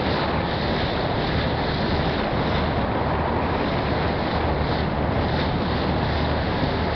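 Passenger ferry under way: its engine gives a steady low drone under the rush of water along the hull, with wind buffeting the microphone.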